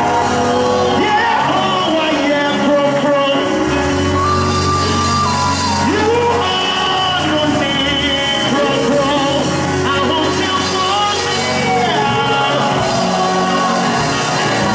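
Live gospel band music: sustained keyboard chords over a held bass, with singing.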